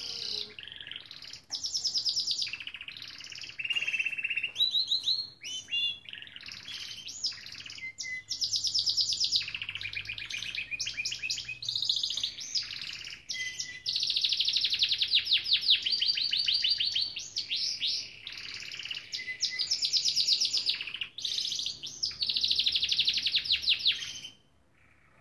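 Gloster canary singing: long runs of rapid, high trills and rolling phrases, broken by short pauses every few seconds. The song stops just before the end.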